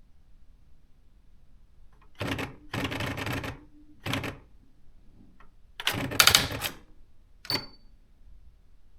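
Nakajima AX-80 electronic typewriter printing in short bursts of rapid strikes. After about two seconds of quiet come five bursts, the longest nearly a second; the last is short and is followed by a brief high tone.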